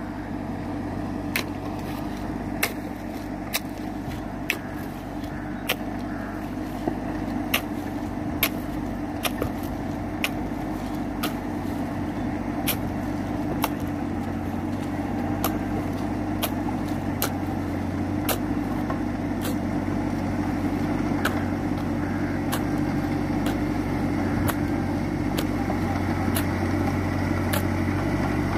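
New Holland Simba 30 mini tractor's three-cylinder diesel running steadily under load as it puddles a flooded paddy on cage wheels, growing gradually louder as it comes closer. Short sharp clicks sound about once a second throughout.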